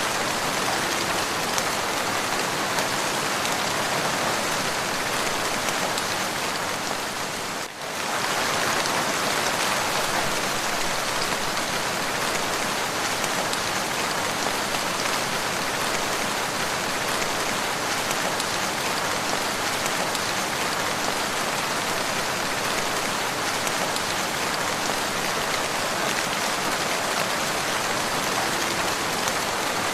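Steady rain falling, a dense even hiss of drops on a surface. The sound briefly dips about eight seconds in, then resumes at the same level.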